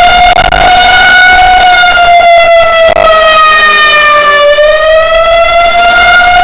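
Federal Signal 2001 electromechanical outdoor warning siren sounding a continuous loud wailing tone. The pitch sags slowly through the middle and climbs back near the end.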